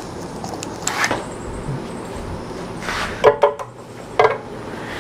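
Short metallic knocks and clicks from a hand tool on the engine as it is turned over by hand: one about a second in, a quick run of several around three seconds, and another a moment later.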